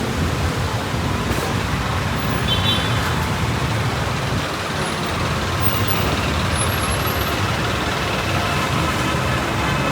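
Street traffic: motor vehicles running and passing over a steady road noise, with a brief high squeal about two and a half seconds in.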